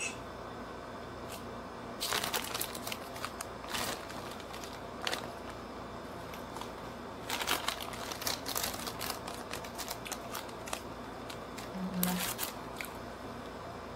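Crinkling and rustling of a food wrapper or packet being handled close to the microphone, in several short bursts, over a steady background hum.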